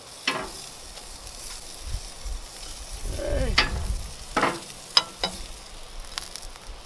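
Grilled chicken wings sizzling as they are dropped into a pan of hot gochujang sauce, with several sharp clacks of tongs against the pan.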